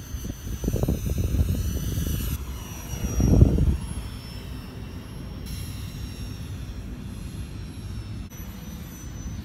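Ducted fans of a radio-controlled flying car model whining, a thin high-pitched whine that slides up and down in pitch over the first few seconds, then holds steady. Under it runs a low rushing noise that swells loudest about three and a half seconds in.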